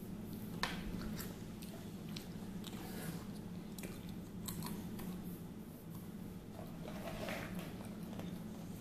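A small child chewing and crunching small crackers, with scattered soft crunches and clicks, over a steady low hum.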